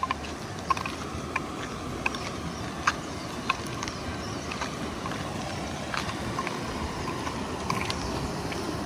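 A shallow river running steadily over rocks and small rapids, with short, sharp clicks about every half second to second through the first part.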